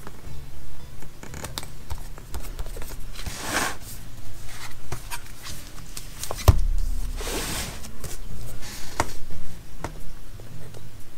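Desk-top handling of a disc-bound paper planner and sticker books: rustling and sliding of paper and sticker pages with small clicks, and a single thump past the middle as the planner is moved on the wooden desk.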